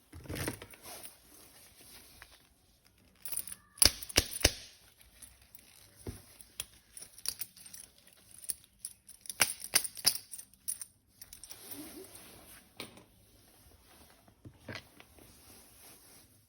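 Hands handling plastic toy parts and packaging: scattered sharp plastic clicks and knocks, a cluster about four seconds in and another around ten seconds, between softer rustling.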